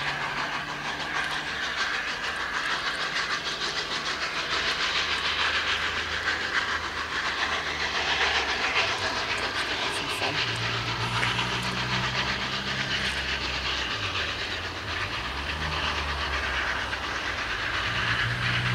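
LNER A4 Pacific steam locomotive 60009 Union of South Africa working its train away from a start, its exhaust beating over a steady hiss of steam, with wheels clicking over the rail joints.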